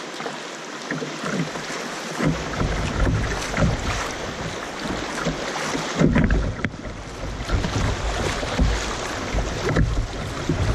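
Shallow river rapids rushing and splashing around a kayak's bow, with irregular sharper splashes. From about two seconds in, a low rumble of wind buffets the microphone.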